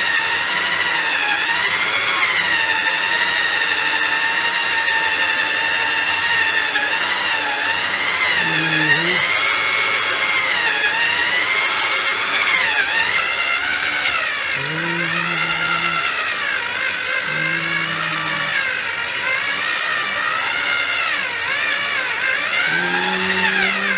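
The 1000 W under-counter motor of a Multi-Chef built-in mixer runs at speed two, turning its stainless bowl and dough hook to knead bread dough. Its whine holds steady in level but wavers up and down in pitch.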